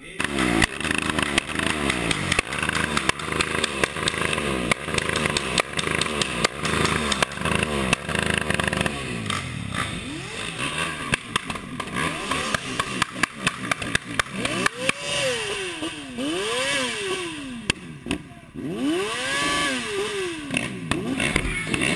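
Dirt bike engine revved hard again and again, its pitch climbing and dropping in quick sweeps, then in several longer rise-and-fall revs in the second half.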